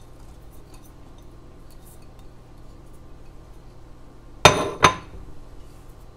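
Two sharp clinks about a third of a second apart, a dish knocking against a cooking pot while an ingredient is tipped in, each with a brief ringing. Otherwise quiet room tone.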